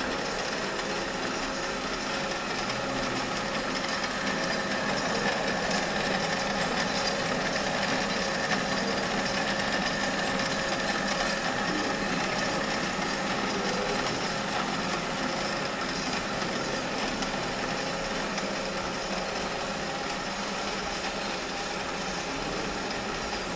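Centre lathe running steadily, its spinning chuck and gear train giving a constant mechanical hum with several steady whining tones, while the turning tool cuts a small metal workpiece.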